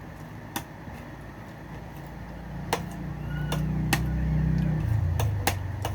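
A motor vehicle's engine passes outside, swelling over a few seconds and dropping in pitch near the end. Several sharp clicks of a spoon or fork against a plate are heard through it.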